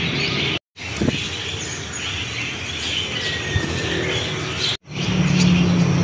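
Many caged songbirds chirping and twittering together, a dense chatter of short calls. The sound cuts out completely twice for a moment, and a low steady hum comes in near the end.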